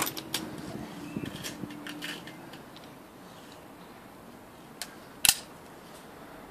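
Weihrauch HW45 spring-piston air pistol being broken open, cocked and loaded: a run of small metallic clicks, then two sharp clicks about five seconds in, the second loud, as the top frame is closed.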